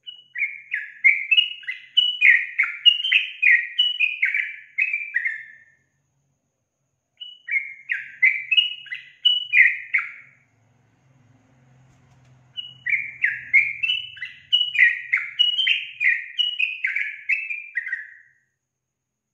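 Female yellow-vented bulbul (trucukan) singing loudly: three rapid chattering phrases of short notes, many sliding down in pitch, the middle phrase shorter, with brief pauses between them.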